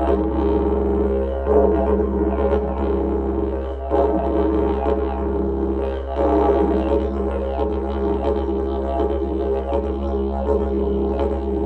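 Didgeridoo playing one unbroken low drone, its overtones shifting in repeated swells every second or two.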